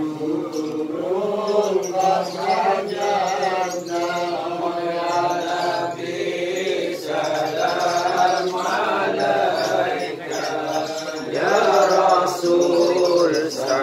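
A group of men chanting Islamic devotional verses (shalawat) together in unison, a continuous sung recitation.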